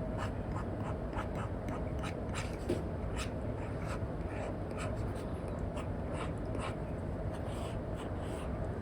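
Apple Pencil tip tapping and stroking on an iPad's paper-like matte screen film, in quick, irregular short strokes, over a steady background hiss.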